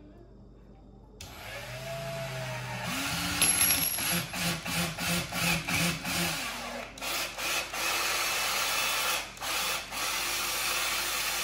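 Cordless drill boring a hole into the end of a tree branch: the motor starts about a second in and speeds up, runs in a string of short spurts through the middle, then holds steady near the end.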